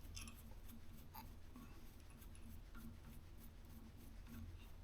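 Near silence: quiet room tone with a few faint, scattered small clicks of handling.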